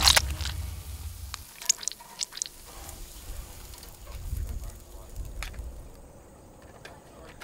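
Drips of thick goo landing on a burger patty on the grill: a wet splat at the start, then a handful of single sharp drops over the next few seconds.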